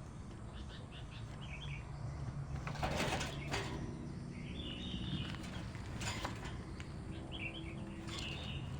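A young woodpecker chirping in short bouts of high, rapid calls, three times over. A louder rustling noise comes about three seconds in.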